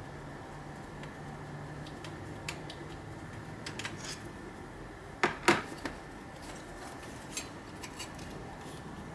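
Metal clicking and clinking as a throttle body is worked loose and pulled off the intake manifold, with two sharper knocks close together about five seconds in.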